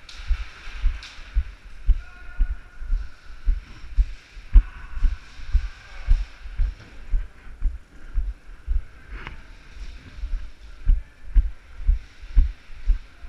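Footsteps of a person walking briskly on a concrete floor, heard as dull low thuds through a body-worn camera, about two steps a second. A single short sharp click or crack about nine seconds in.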